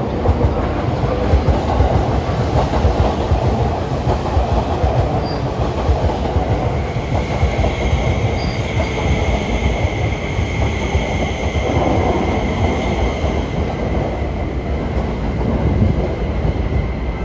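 Electric commuter train moving along a station platform, its wheels rumbling on the rails, with a steady high-pitched wheel squeal starting about six seconds in.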